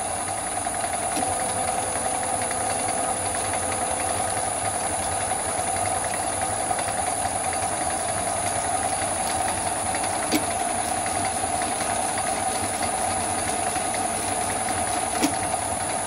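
Metal lathe running steadily, its spindle turning at about 500 rpm, with a continuous even mechanical hum. Two short clicks come through, about ten seconds in and again near the end.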